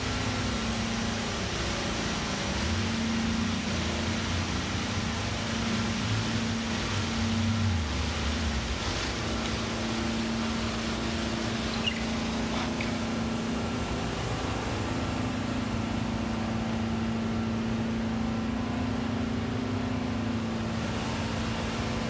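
Hot-water carpet extraction machine and wand running steadily on carpet: a constant drone with a low hum under a broad suction hiss. The highest part of the hiss fades somewhat in the second half.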